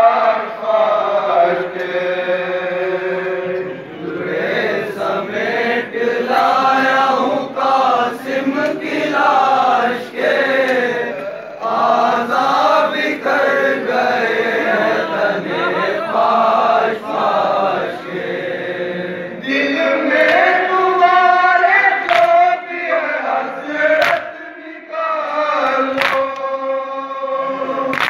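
A group of men chanting a noha, a Shia mourning lament, together in a sung, drawn-out chant. A few sharp beats come about every two seconds near the end.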